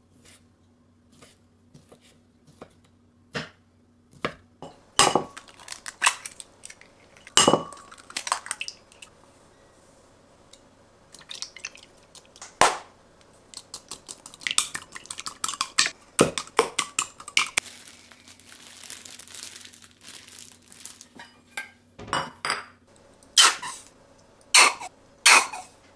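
Kitchen prep sounds: a knife tapping through sausage onto a wooden cutting board, a stick rattling and clinking as it beats eggs in a glass measuring cup, and stainless steel bowls clinking on the counter. These come as a series of separate knocks and clinks, with several loud ones near the end.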